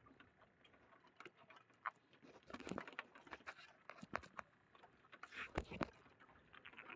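Irregular light taps and knocks, sparse at first and then denser, with a few sharper knocks near the middle.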